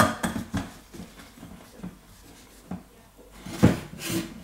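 Stanley stainless-steel vacuum food jar being handled: a click and light rubbing and ticks as its lid is gripped and turned, then a knock about three and a half seconds in as the jar is set down on the countertop.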